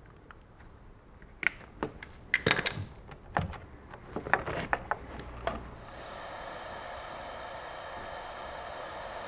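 Scattered clicks and knocks of wires and hand tools being handled. About six seconds in, the steady hiss of a gas soldering iron burning sets in.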